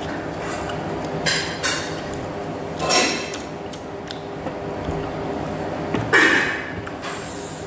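Wooden chopsticks stirring and lifting noodles in a ceramic bowl of soup: a few short clinks, scrapes and swishes, the loudest about six seconds in, over a steady low hum.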